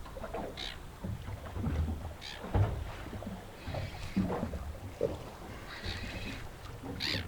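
Wind buffeting the microphone and water slapping against a small boat's hull in a gusty rumble, with short high-pitched calls breaking in three times.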